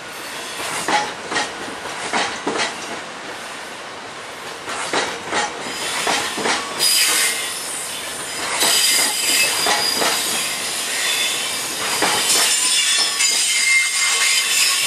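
Freight train's bogie coal hopper wagons rolling past, wheels knocking over the rail joints in a string of clacks. From about halfway through, a high wheel squeal joins in and the noise grows louder.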